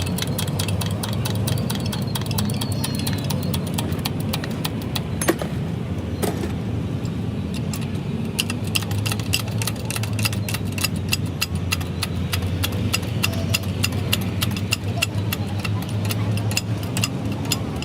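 A truck engine running steadily, with a rapid, even clicking rattle over it, about four clicks a second.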